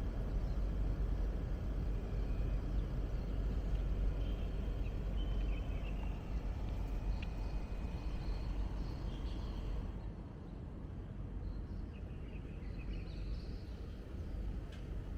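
Steady low hum and rumble of a split air conditioner's outdoor unit running, easing slightly about two-thirds of the way through, with faint bird chirps.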